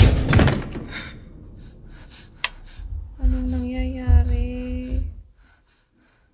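Horror film sound effects: a loud thud with a low rumble that dies away over about a second, a sharp click, then a held, slightly wavering note over a low rumble for about two seconds.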